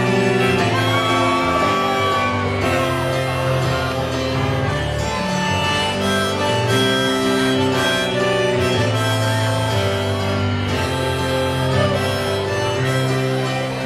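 Music played on a small electronic practice keyboard: held chords that change every second or two, with a melody line over them.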